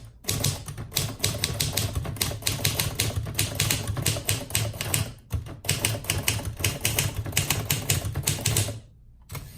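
Triumph Perfekt manual typewriter being typed on fast: a rapid run of key strikes, a brief pause about halfway, then another fast run that stops shortly before the end.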